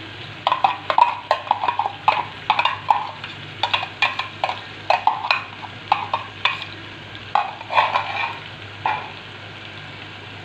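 A steel spoon scraping and tapping ground garlic, ginger and green chilli paste out of a small container into a pot of frying chicken: a quick, uneven run of clicks and knocks, some of them ringing briefly. They stop about nine seconds in, leaving faint frying and a low hum.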